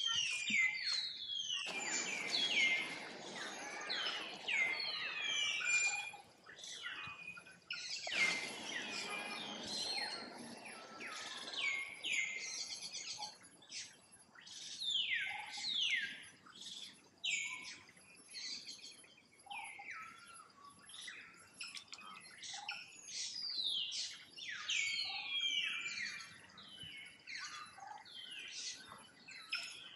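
High-pitched chirping calls, many short notes each falling in pitch, repeated over and over. A rustling noise rises under them twice in the first third.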